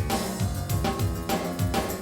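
Music with a steady drum beat: kick drum and snare-like hits in a regular rhythm.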